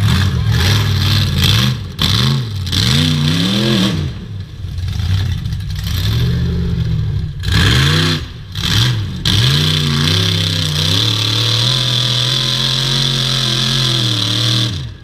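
Rock bouncer buggy's engine revving hard in repeated bursts, pitch swinging up and down as it churns through deep mud, then held at high revs for about four seconds before dropping off at the end.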